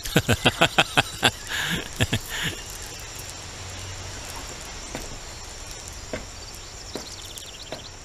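Insects chirring steadily, high-pitched, with a quick run of about eight short, sharp sounds in the first second or so and a few softer breathy ones just after.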